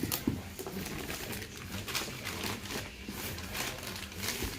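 Unboxing handling noise: cardboard and packing material rustling and scraping, with several irregular knocks as drill press parts are lifted out of the box.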